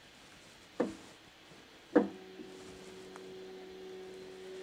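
Two sharp knocks about a second apart. After the second knock, a steady two-pitched machine hum starts and keeps going: a Bambu Lab X1 Carbon 3D printer starting up at the start of a print job.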